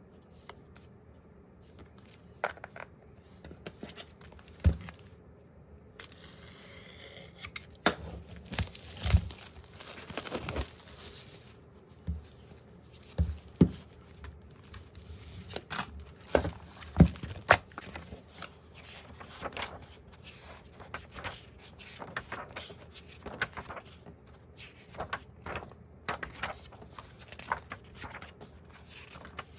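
Photocards and a hardcover photobook being handled on a desk: scattered taps and knocks, a few seconds of denser rustling about a quarter of the way in, and paper pages being flipped near the end.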